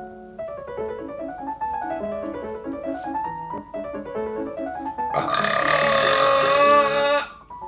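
A woman's long, loud burp of about two seconds, starting about five seconds in, over background piano music.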